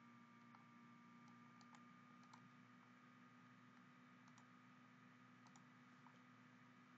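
Near silence: a faint steady hum with a scattering of very faint short ticks.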